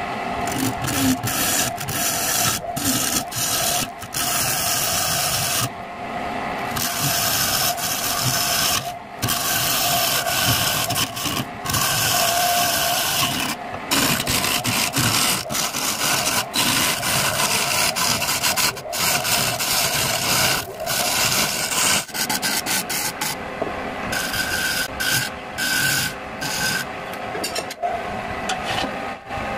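Hand-held turning chisel scraping the inside of a wooden bowl as it spins on a wood lathe, with the lathe running. The cut is continuous but broken by many short gaps where the tool comes off the wood.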